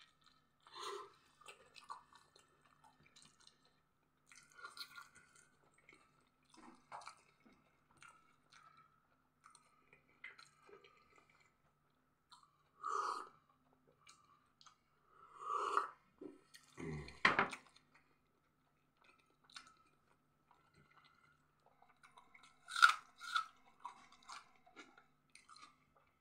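Close-miked chewing and crunching of pizza, in scattered short bouts, with a sip from a glass of tea around the middle. A sharp knock near the end is the loudest sound.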